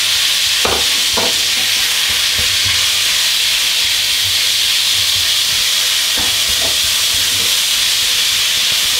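Minced beef sizzling in hot oil in a very hot electric wok, a steady hiss, as a wooden spoon stirs and breaks it up, knocking against the pan a few times.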